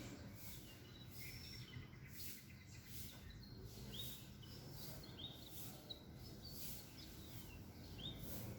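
Small birds chirping at intervals: short calls, some sliding down in pitch, over a steady low background rumble.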